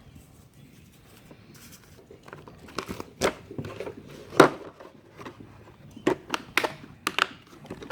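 Neapolitan Mastiff lapping water from a bowl: a string of irregular wet slaps and splashes, really loud.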